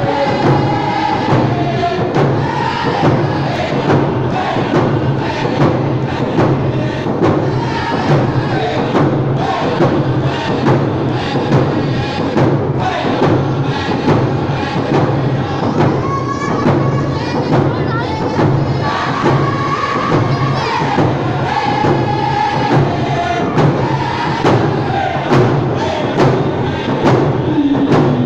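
Group of voices chanting a song whose melody falls step by step, over a steady, even drum beat.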